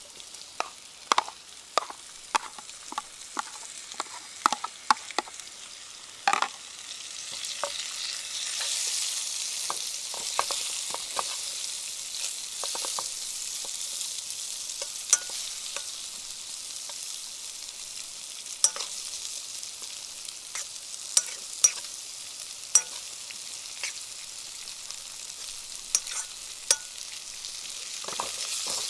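Food sizzling in a frying pan, with a utensil clicking and scraping against the pan as it is stirred. The sizzle grows louder about eight seconds in.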